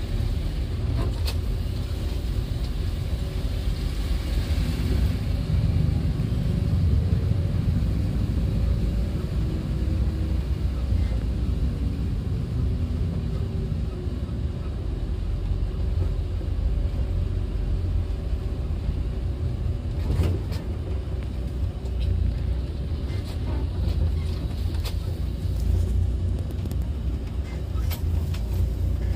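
Coach bus engine and road rumble heard from inside the cabin while the bus rolls slowly along a broken road. The engine note rises and falls over several seconds, and sharp knocks or rattles come now and then in the second half.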